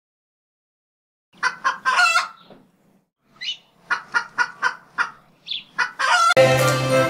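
A chicken sound effect clucking in quick, sharp calls, a first burst and then a run of about four clucks a second. Music comes in about six seconds in.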